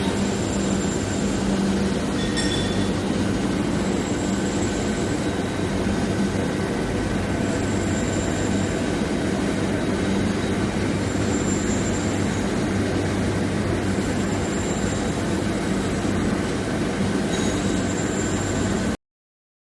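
Long-bar induction hardening and tempering line running: a steady industrial din with a low hum, and faint high-pitched tones that come and go every few seconds. It cuts off suddenly near the end.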